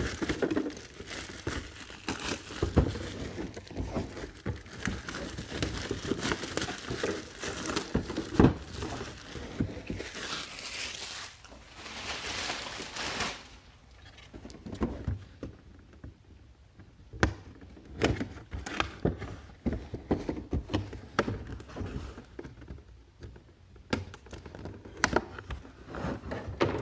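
Plastic shrink-wrap and packaging crinkling and tearing as sealed boxes are opened by hand, densest in the first half. After that come quieter handling noises with scattered sharp clicks and knocks.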